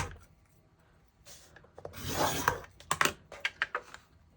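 Cardstock being scored on a scoring board: a stylus scraping along the groove in one stroke about two seconds in, with paper shifting and a few light clicks and taps.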